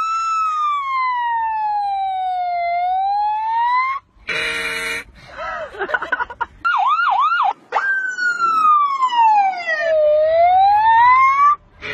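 A boy's voice imitating a police car siren: a long wail that falls and rises again, three quick yelps, then another long falling-and-rising wail. There is a brief, rougher burst of sound about four seconds in.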